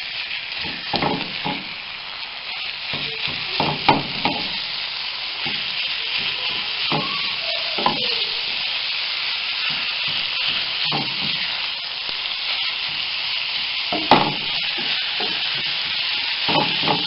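Ground meat with onion and vermicelli frying in a pan: a steady sizzle, with a wooden spoon stirring and scraping through the mixture and knocking against the pan now and then, most sharply about fourteen seconds in.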